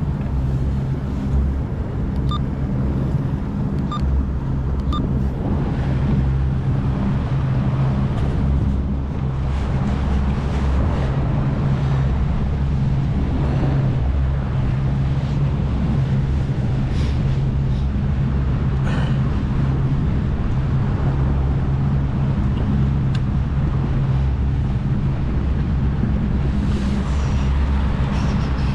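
A small boat's engine running steadily under way, a constant low hum with noise from wind and water above it.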